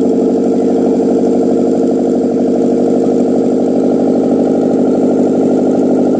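K3 car engine, a 1.3-litre four-cylinder, idling steadily at an even speed.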